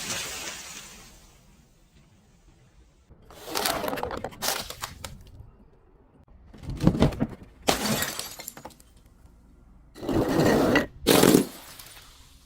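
Glass breaking and shattering in three bouts of crunching cracks, starting about three and a half, seven and ten seconds in, the last bout the loudest; the ringing tail of an earlier crash fades out in the first second or so.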